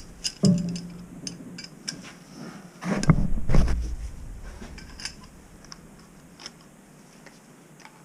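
Metal clicking and clinking as threaded male adapters are tightened into a brass shower valve with a hand tool. Two brief, louder pitched sounds come about half a second and three seconds in.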